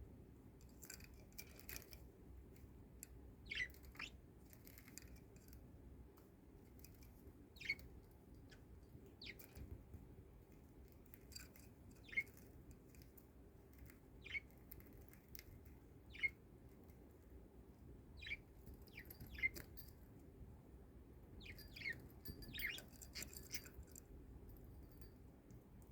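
A pet budgerigar giving short, faint chirps, one every second or two.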